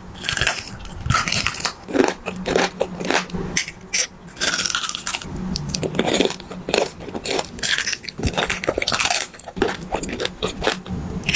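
Close-miked mouth biting and chewing jelly and candy sweets: a rapid, irregular run of crisp crunches and clicks.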